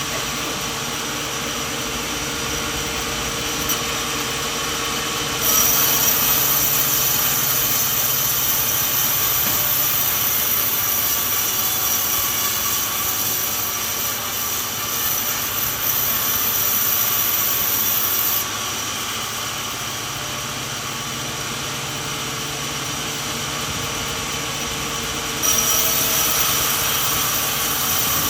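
Sawmill machine running steadily. A louder, hissing cutting sound comes in about five seconds in, drops out at about eighteen seconds, and comes back near the end as the blade works through the coconut log.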